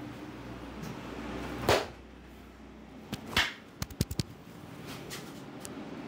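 Barber's hands working on a client's head and neck during a massage: two brisk swishes, then a quick run of five or six small sharp cracking clicks about two thirds of the way in.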